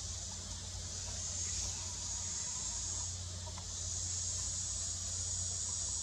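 Insects buzzing in a steady high-pitched drone that grows louder about four seconds in, over a low steady hum.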